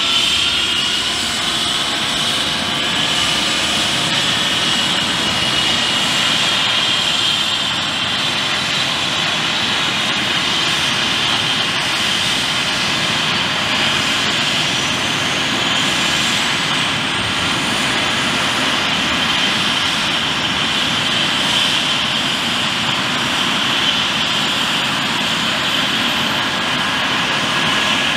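Eurocopter EC135 twin-turbine helicopter running on the ground with its main rotor turning, a steady turbine whine over the rotor and engine roar. The whine rises in pitch over the first few seconds and again about halfway through, then holds: the engines spooling up before take-off.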